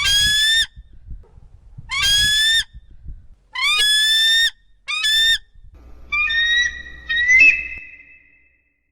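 Eagle calling: four loud, piercing screams in the first five seconds or so, then a run of thinner, shorter whistled calls.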